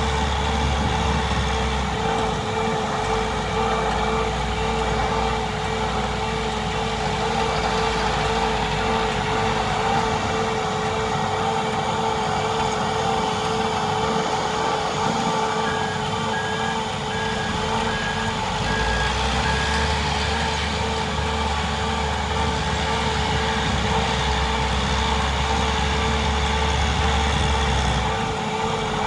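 Eagle 9700 wheel trencher running steadily as it digs, with other heavy equipment working alongside. A backup alarm beeps about once a second for several seconds midway.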